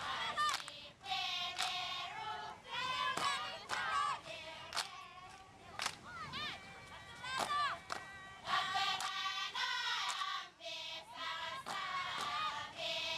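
A group of women singing a chanted dance song in unison, in phrases of held, wavering notes, with sharp handclaps in between.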